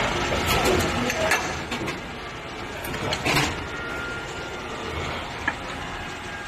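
Injection moulding machine running through a moulding cycle on a four-cavity engine-oil cap mould: steady machine noise with a few clicks early, a brief loud rush of noise about three seconds in as the mould opens, and a sharp tick near the end.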